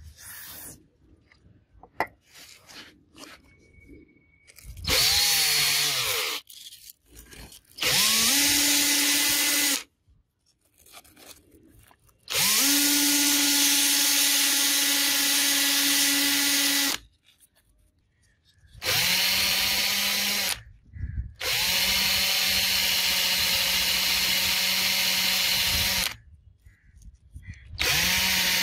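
Cordless drill spinning a small steel shaft while sandpaper is held against it, in six runs of about two to five seconds with short pauses between. Each run starts with a whine rising as the motor spins up, then holds steady under a hiss of sanding.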